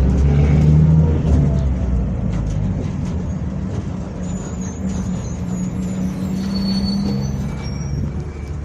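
Mercedes-Benz OF-1722M city bus running, loudest about a second in and then getting steadily quieter, with a steady low drone from its driveshaft (cardan). Faint high squeals come in the second half.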